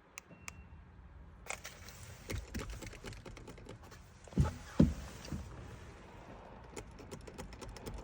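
Scattered light clicks and taps of hands handling the battery kill switch and terminal hardware, with two louder knocks about four and a half and five seconds in and a brief faint beep half a second in.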